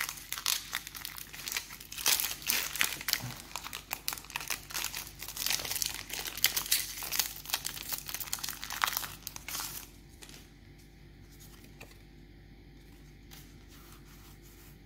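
Foil Pokémon trading-card booster pack crinkling and crackling as it is torn open and pulled apart. The crinkling stops about ten seconds in, leaving a faint steady hum.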